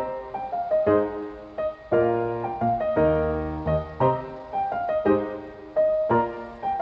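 Background piano music: a gentle melody of single struck notes over chords, each note dying away.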